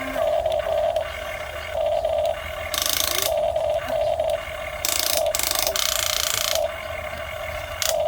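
Huina 1550 RC excavator's small electric motors and plastic gearboxes whining in short on-off stretches as its functions are worked, with louder harsh rattling spells about three seconds in and again from five to six and a half seconds.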